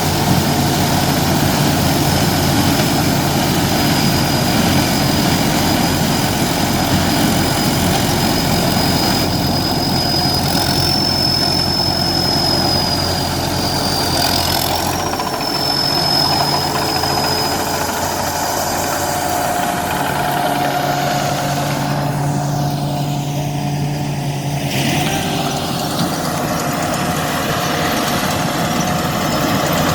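Engine-driven corn sheller running steadily, with a thin high whine through the first half and its engine note shifting slightly a few times.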